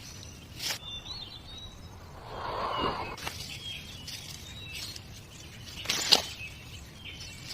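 Birds chirping, with a few sharp knocks, the loudest about six seconds in.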